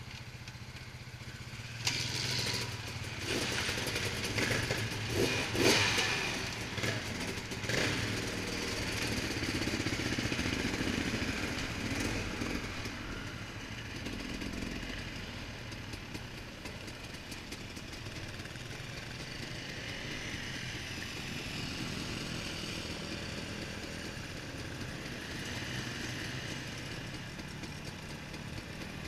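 Dirt bike engines running: the camera bike's own engine idling and pulling away slowly, with other dirt bikes revving nearby. Louder, uneven bursts come in the first several seconds, then the engine note settles into a steady run.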